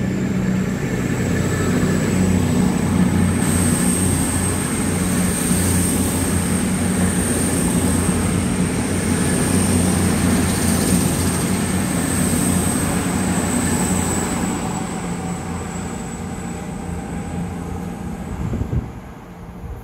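Two coupled CrossCountry diesel train units moving through the station: a steady engine hum with a thin high whine above it. The whine lifts slightly early on, holds, then sinks and dies away, and the sound drops off sharply near the end.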